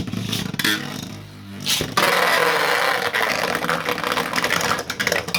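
Two 3D-printed Beyblade spinning tops whirring and scraping in a plastic stadium just after launch, clattering against each other and the stadium walls with rapid clicking hits. About two seconds in, the grinding clash grows louder and more constant.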